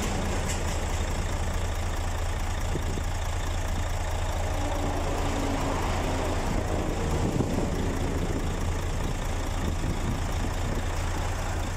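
Steady low hum of a heavy truck engine idling close by, under the rushing noise of highway traffic passing at speed. A large truck goes by about six to seven seconds in, the loudest moment.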